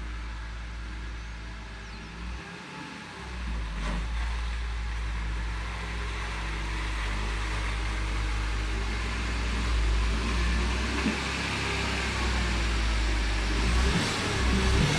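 A BMW E46 325Ci running on the road: a steady low engine drone with road noise over it, briefly dipping about two and a half seconds in.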